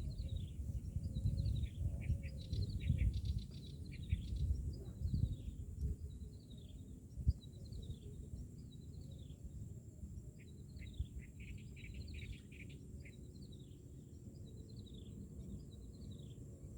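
Small birds chirping over and over, each chirp a short downward slide, over a steady low rumble that is heavier in the first half. A single knock about seven seconds in.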